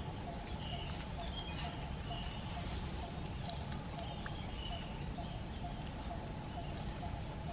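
Outdoor ambience: a steady low rumble with short high bird-like chirps now and then, and a faint tick repeating about twice a second throughout.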